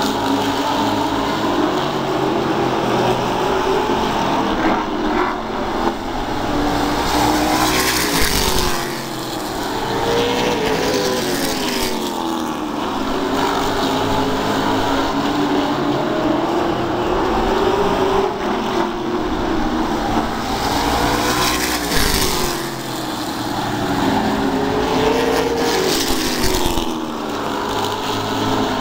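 Short-track stock car engines running at racing speed around an oval, rising and falling in pitch as the cars accelerate on the straights and lift for the turns. A few louder swells mark cars passing close by.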